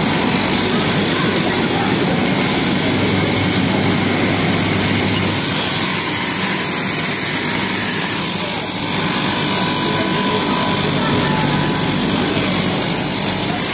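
Electric straight-knife fabric cutting machine running steadily, its vertical reciprocating blade cutting through a stacked lay of 260 gsm cotton fleece.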